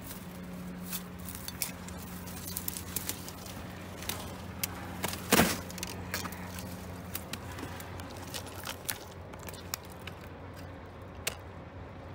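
Dry twigs and branches crackling and snapping as someone pushes through dead brush, with one louder sharp snap about five seconds in. A steady low hum underneath stops about seven seconds in.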